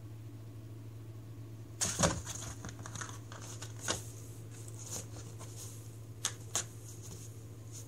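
A cat scrabbling on cardboard inside a box as it bats at a small plastic cap ring: a run of scratches and light clicks that starts about two seconds in, with sharper ones soon after and twice near the end, over a steady low hum.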